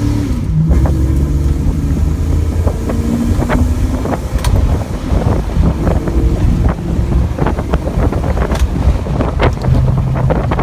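Car engine accelerating from a standing start through the gears. Its pitch climbs and falls back at each upshift, with wind buffeting the microphone and road noise growing louder as speed builds.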